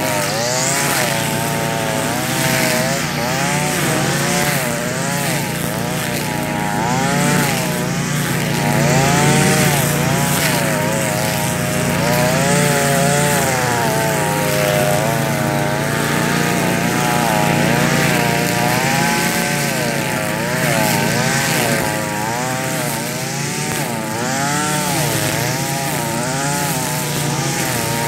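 Gas string trimmer engine running at high speed while cutting tall grass, its pitch wavering up and down a couple of times a second without a break.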